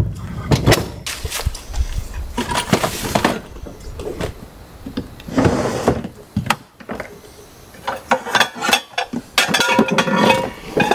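Irregular knocks, clicks and clatter with rustling in between as camp cooking gear is handled and set out.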